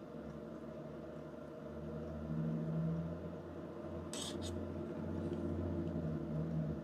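A steady low hum that swells and eases, with a short scrape about four seconds in as a screwdriver is handled on the bench.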